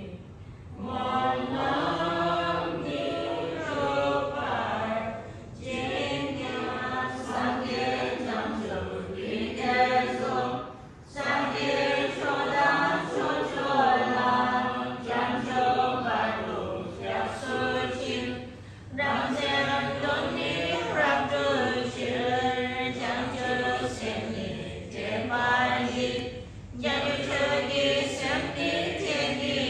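A group of devotees chanting Tibetan Buddhist prayers together in a melodic unison recitation, in long phrases broken by brief pauses for breath every several seconds.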